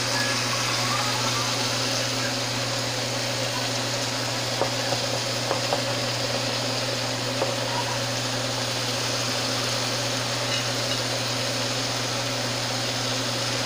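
A steady low mechanical hum under a hiss, with a few light clicks of a metal spoon against the pot and bowl as cooked rice is scooped into a pan of vegetables.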